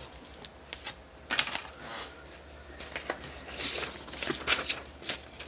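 Small clear plastic zip-top bags of glitter crinkling and rustling in a few short bursts as they are handled and laid out on a table, over a faint low hum.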